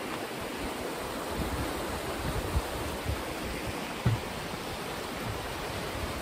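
Fast-flowing river rushing below a footbridge, a steady even rush of water. A few short low bumps on the microphone, the loudest about four seconds in.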